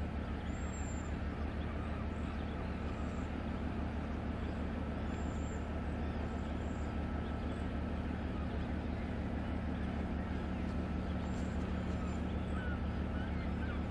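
Steady low drone of the passing Great Lakes freighter Lee A. Tregurtha's engines, a deep layered hum with a faint steady whine above it.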